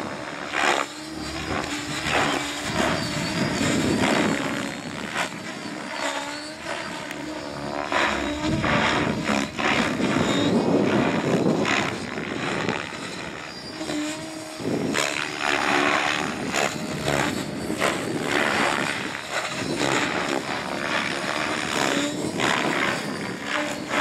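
Electric RC helicopter's main rotor on Zeal Energy blades whooshing in flight, swelling and fading in loudness as it manoeuvres, with a thin high whine running under it.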